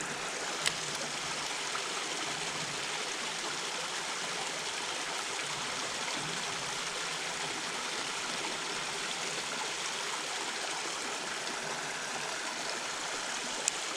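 Creek water running steadily, with two brief sharp clicks, one about a second in and one near the end.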